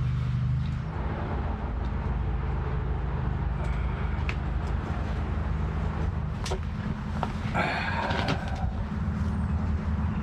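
A steady low mechanical hum, with a few sharp clicks and a short scraping rustle about eight seconds in.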